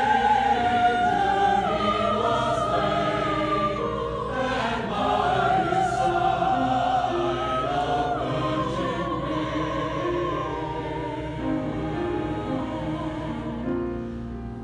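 Mixed-voice church choir singing in parts, holding long notes with vibrato that change every second or two, a little softer toward the end.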